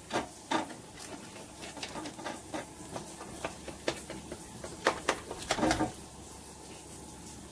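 Knife cutting through a tray of baked roqaq, the crisp top of the layered pastry crunching and crackling in a string of small sharp crackles that stop about six seconds in.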